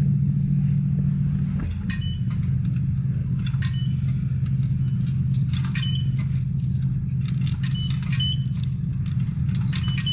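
Automatic car wash running: a steady low drone from the wash machinery, with irregular sharp ticks and clicks throughout.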